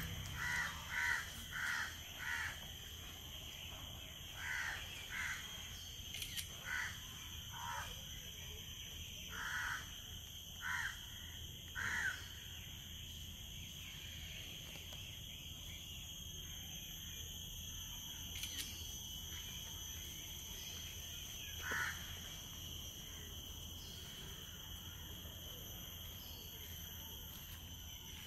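A bird giving a run of short repeated calls, several a second at first, then more widely spaced, with one last call well after the rest. Under them runs a steady high-pitched drone.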